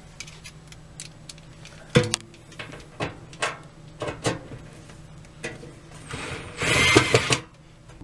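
Cordless drill-driver working inside a steel safe: a sharp knock about two seconds in and a few smaller clicks and knocks, then a short run of the driver near the end, sinking a number 10 screw through the safe's floor.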